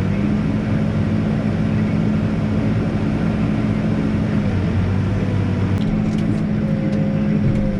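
Backhoe's diesel engine running steadily while digging, its note shifting briefly about halfway through.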